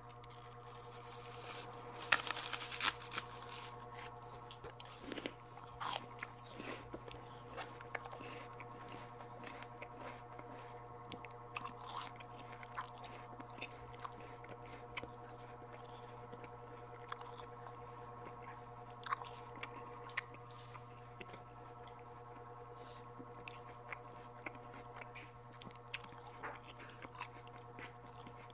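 Close-miked biting and chewing of santol fruit, with crunchy bites and mouth clicks scattered throughout, the loudest bites in the first few seconds. A steady low hum runs beneath.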